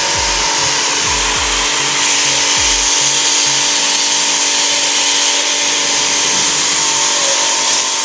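Electric high-pressure washer running steadily: a constant motor whine under the hiss of the water jet.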